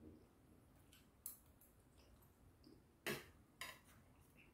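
Metal chopsticks and spoon tapping against a stainless steel compartment tray: three short, light clinks, one about a second in and two close together about three seconds in, with near silence between them.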